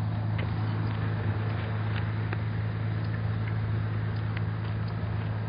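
Bus engine idling: a steady low hum.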